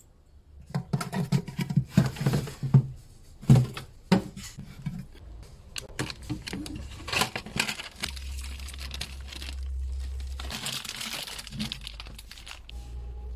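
Plastic packaging crinkling and rustling as it is handled, with irregular light knocks and clicks of items being moved. A steady low hum comes in about eight seconds in.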